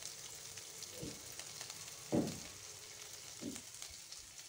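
Sliced onions frying in hot oil with tempered spices in a kadai: a steady, faint sizzle, with a few soft bumps about one, two and three and a half seconds in.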